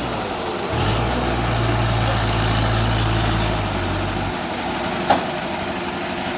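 An engine running steadily. Its low hum cuts off about four seconds in, and a single sharp click sounds about a second later.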